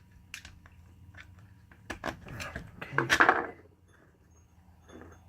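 Small metal clicks and a short scrape of flat-blade screwdrivers working the spring-loaded pins and cups of a Spartan Locker differential locker.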